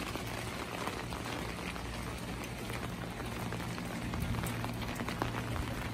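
Steady light rain falling on wet pavement, with scattered drop ticks and a low steady hum beneath.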